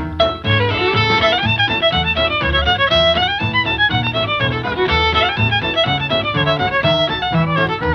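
Background music: a lively fiddle tune over a steady bass beat.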